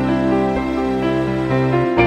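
Instrumental background music with sustained, overlapping notes.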